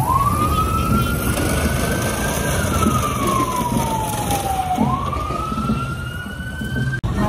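Fire engine siren wailing: it rises in pitch over about two seconds, falls slowly, then rises again. A low rumble of vehicle engines runs underneath.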